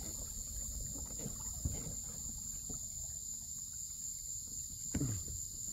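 Steady high-pitched insect drone, with a low rumble underneath and a few faint knocks, the clearest about five seconds in.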